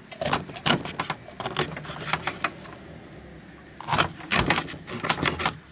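Knife cutting a carp into chunks on a wooden board: a quick run of sharp crunches and scrapes as the blade goes through the scaly skin and knocks the board, in two bursts with a pause between them.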